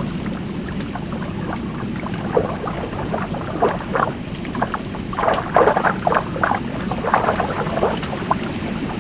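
Underwater ambience: a steady low rumble with many short bubbling blips, thickest a little past the middle.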